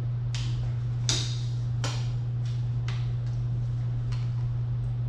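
Irregular sharp clicks and short scrapes, about seven in five seconds and the loudest about a second in, as a clip or fastener on the engine's intake manifold is worked loose by hand, over a steady low hum.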